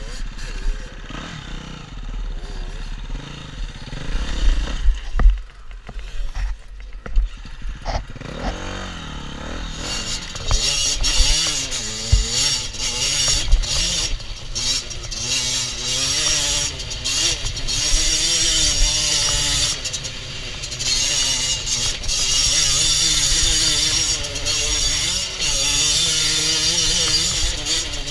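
Two-stroke 50cc engine of a Beta RR 50 Factory enduro bike, heard from the rider's helmet camera, revving up and down as it is ridden over a dirt track, with wind buffeting the microphone. The engine gets louder and higher from about a third of the way in.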